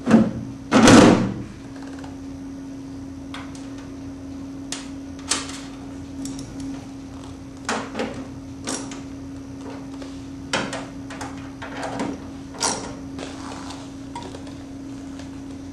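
A loud sheet-metal knock about a second in as the fan motor's mounting plate is set against the tumbler cabinet. Then scattered light metallic clicks and taps as the plate's bolts are fitted and driven with a hand tool, over a steady low hum.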